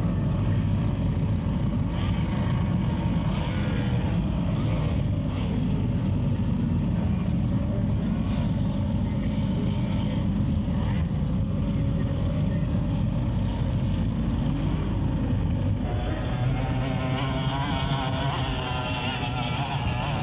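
Formula 1 racing powerboats' outboard engines running flat out on the water, a steady, dense engine drone. Near the end a higher, wavering engine note comes in as a boat passes close.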